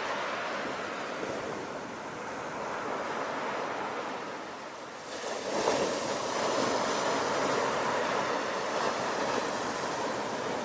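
Sea waves on the shore: the surf eases for a few seconds, then a wave breaks about five seconds in and its loud wash carries on.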